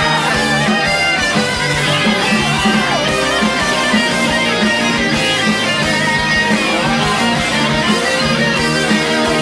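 Instrumental break of a pop-rock song: a full band with electric guitars and a steady drum beat, with no singing.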